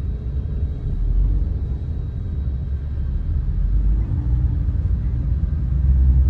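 Steady low rumble of a taxi's engine and tyres heard from inside the cabin while driving in traffic.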